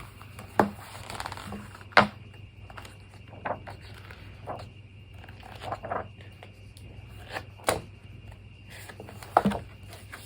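Paper and a workbook being handled: rustling and scraping with a few scattered sharp taps and knocks as it is picked up and opened.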